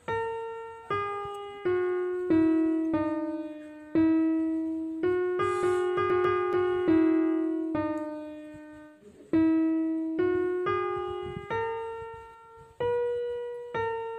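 Background piano music: a slow melody of single struck notes, each ringing out and fading before the next.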